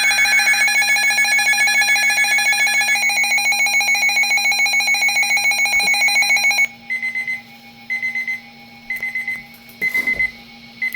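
Emergency weather alert tones for a severe thunderstorm warning: a loud, rapidly pulsing electronic alarm that cuts off suddenly about two-thirds of the way through. Short high beeps then follow about once a second over a steady low hum.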